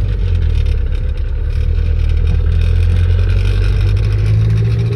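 Truck engine running under way with road noise: a loud, steady low drone that grows a little louder about four seconds in as the truck picks up speed.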